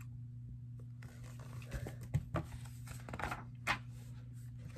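A few soft rustles and light taps of a hardcover picture book being handled and closed, over a steady low hum.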